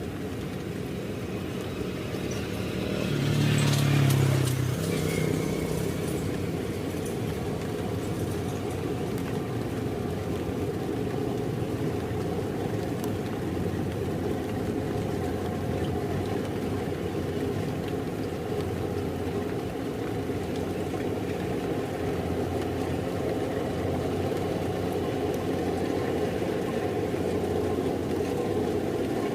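Kubota DC-70 rice combine harvester running steadily, its diesel engine and threshing machinery droning, with a brief swell louder about four seconds in.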